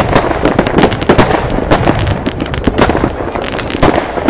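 Fireworks going off all around: rockets bursting, many bangs and crackles overlapping in quick succession with no pause.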